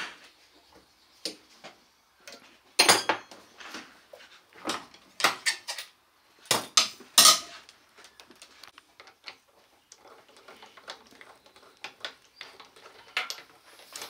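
A spanner and motorcycle fork valving parts clinking and clattering as they are handled in a suspension workshop: a series of sharp metallic clicks and knocks, loudest in clusters about three seconds in and again about seven seconds in.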